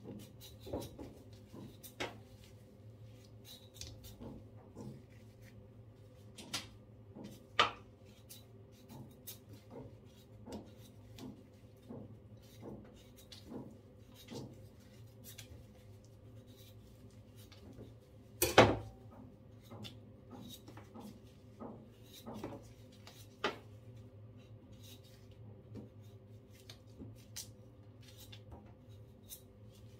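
Kitchen knife paring the skin off taro roots: scattered light scrapes and clicks of the blade, with two louder knocks about 7 and 18 seconds in, over a faint steady hum.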